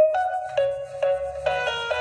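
Background music: a light, cute tune of bell-like keyboard notes, a new note about every half second, over a soft bass line.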